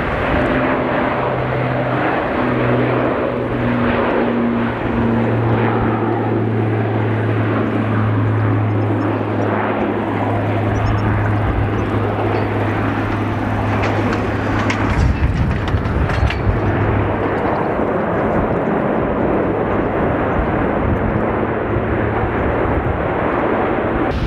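Airbus A380 landing: loud, steady jet engine noise as the four-engine airliner comes in over the runway and rolls out. A low hum under the jet noise fades about fifteen seconds in, and a deeper rumble takes over.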